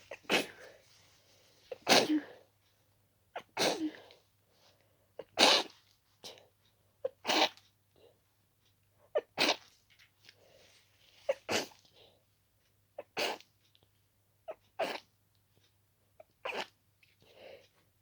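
A person's rapid sneezing fit: about ten sneezes, one every two seconds or so, with short quick breaths in between. The sneezes are wet and stuffy, from an itchy nose that the sneezer puts down to a dust allergy.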